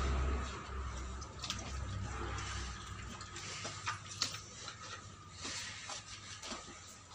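A cow eating wet mash from a concrete trough: irregular wet slurps and tongue licks against the trough. A low rumble fades out about a second in.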